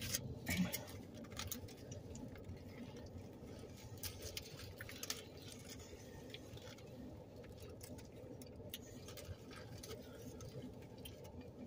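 Quiet eating sounds: foil burrito wrappers crinkling and rustling in the hands, with chewing, heard as a scatter of small irregular clicks and rustles.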